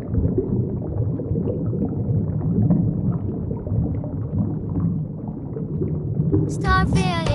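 Underwater ambience: a low, rumbling water noise with faint crackles and clicks. A children's song comes back in near the end.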